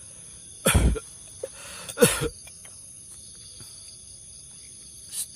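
Night insects chirring steadily in several high-pitched bands, broken by two short, loud, cough-like sounds close to the microphone, about a second and two seconds in, and a softer one near the end.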